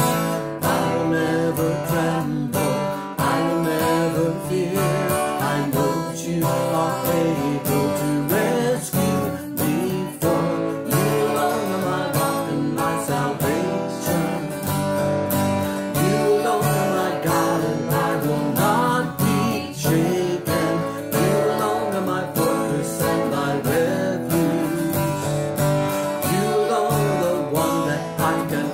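Acoustic guitar strummed steadily, with a man and a woman singing together over it for much of the time.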